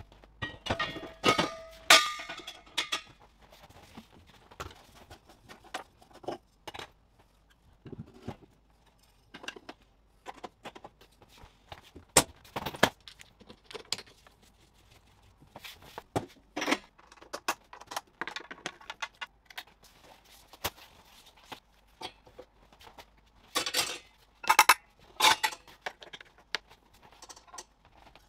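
Steel gas cylinder clanking against a stainless steel cart frame, the metal ringing on the first hits. Scattered knocks, clicks and clinks follow as torch and cable connectors are handled and plugged into the welding machine, with another cluster of loud knocks near the end.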